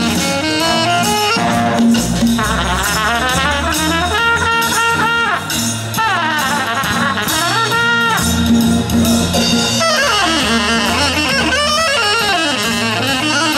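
Alto saxophone and trumpet trading jazz phrases in a duel, with fast runs and swooping glides over a steady bass line and beat. Near the end the saxophone carries on alone.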